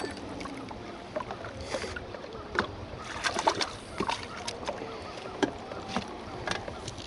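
Small waves lapping against a fishing boat's hull under a steady low rumble, with scattered light clicks and knocks.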